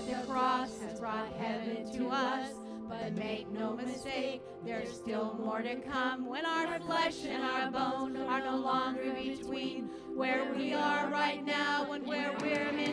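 Church worship team of women's and men's voices singing a worship song together, over steady sustained backing music.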